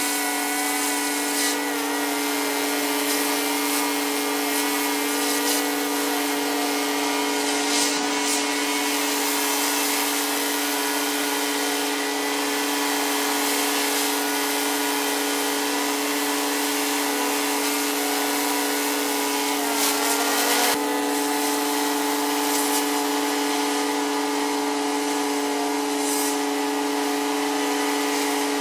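Pressure washer running steadily, its motor and pump holding one even tone over the hiss of the high-pressure spray on concrete. Brief knocks come about a third of the way in and again about two-thirds through.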